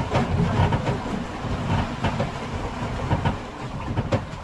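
Boat under way: a steady low rumble with irregular knocking and clattering.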